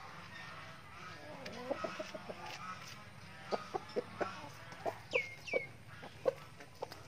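Backyard chickens clucking while they feed: a run of short, repeated clucks starting about a second and a half in, with two brief high falling calls just after the middle.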